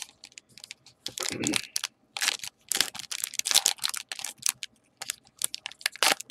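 Foil wrapper of a baseball card pack crinkling and tearing as it is opened by hand: a dense, irregular run of sharp crackles and rustles.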